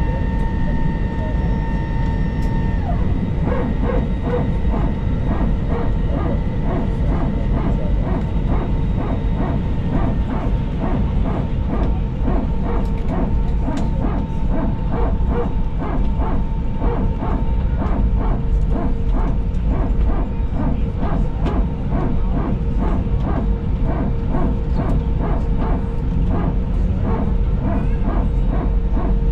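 Airbus A321 power transfer unit (PTU) barking: a fast, evenly repeating bark from the hydraulic system that starts about three seconds in and keeps going, heard inside the cabin over the aircraft's steady hum.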